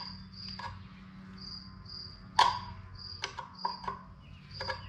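A screwdriver scraping old, stuck-on oil pan gasket off a Chevy 350's metal sealing surface in short strokes and clicks, the loudest about halfway. A cricket chirps in a regular high pulse throughout, over a steady low hum.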